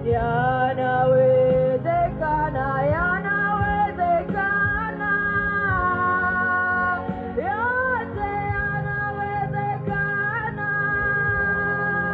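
A woman singing a Swahili gospel song through a microphone and PA, holding long notes with slides between them, over a steady instrumental backing.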